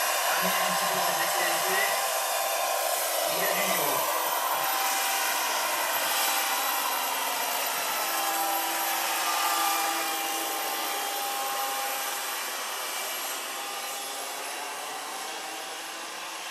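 Turbine-powered RC scale AS-332 Super Puma helicopter model in flight, its JetCat SPH-5 turboshaft giving a steady hissing whine over the rotor noise. It grows fainter in the last few seconds as the model flies off.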